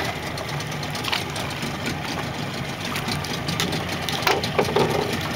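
Small outboard motor idling steadily. A pole net splashes into the water about a second in and again a few times near the end.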